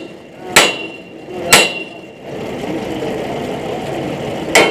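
Hammer striking steel on a borewell pipe-pulling rig: two ringing metallic blows about a second apart, then a third near the end. A steady engine hum runs underneath and gets louder about halfway through.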